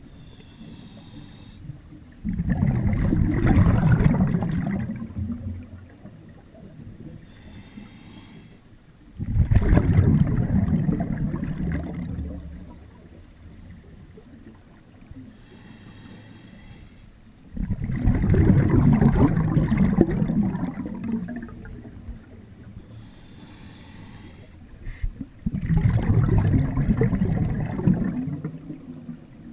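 Scuba diver breathing through a regulator underwater: four loud rushes of exhaled bubbles, each starting abruptly and fading over about three seconds, roughly eight seconds apart. A faint hiss of the inhale comes before each one.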